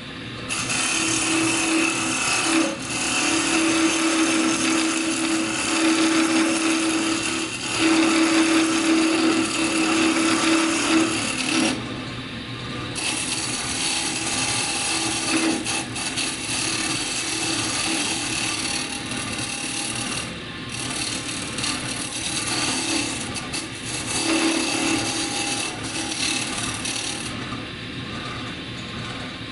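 A scraper cutting into a soft-wood spindle spinning on a wood lathe: a continuous scraping hiss as shavings come off, with a steady hum underneath. The cutting breaks off briefly about twelve seconds in, again around twenty seconds, and eases off near the end.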